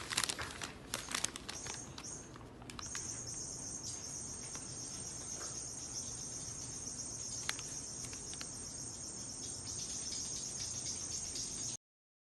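Insects chirping in a steady high-pitched drone, with a few sharp clicks in the first couple of seconds. The sound cuts off abruptly near the end.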